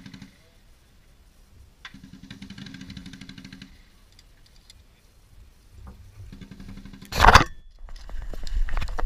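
Machine-gun fire in three fairly faint bursts of one to two seconds each, rapid and evenly spaced shots. About seven seconds in, a loud knock and then scraping and rustling as the ground-level camera is knocked over and handled.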